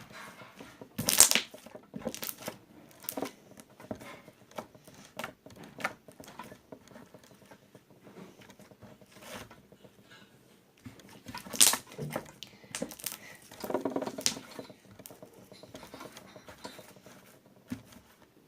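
Homemade PVA-glue and borax slime being squeezed, stretched and pulled apart by hand, giving irregular sticky crackles and pops. The loudest snaps come about a second in and again about twelve seconds in.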